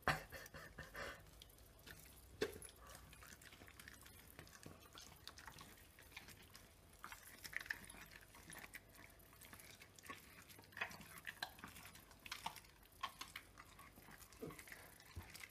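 German Shepherd chewing and licking a raw steak: faint, scattered wet smacks and clicks of jaws and tongue on the meat, with one louder click a couple of seconds in.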